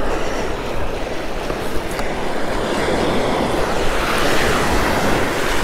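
Steady rush of wind on the microphone mixed with small waves washing up the sand.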